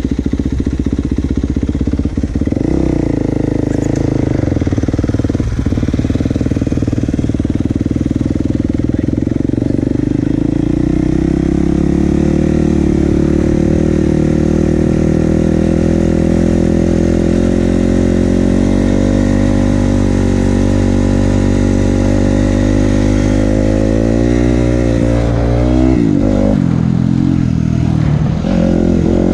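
Dirt bike engine running under way. Its note climbs slowly over about fifteen seconds, then dips and rises sharply a few times near the end as the throttle is opened and closed.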